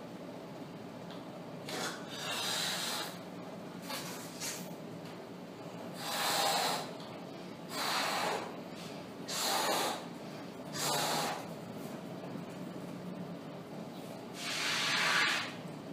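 Latex balloon being blown up by mouth: about six breathy puffs of air, each a second or so long, with short pauses between them.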